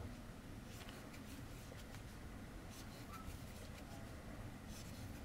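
Faint soft scratches and light clicks of a crochet hook drawing cotton yarn through single-crochet stitches, over a low steady background hum.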